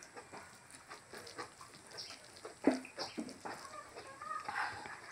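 Close-up mouth noises of eating rice and pork curry by hand: irregular wet chewing and lip smacks, with one sharp, loud smack about halfway through and a few short pitched sounds near the end.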